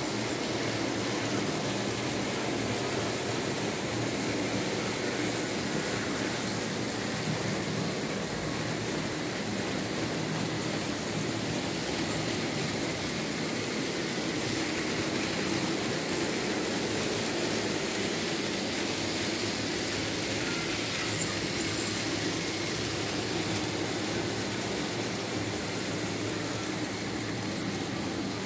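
Märklin H0 model BR 74 steam locomotive running steadily on the track, hauling a freight train of open wagons, with a continuous electric motor hum and rolling wheel noise.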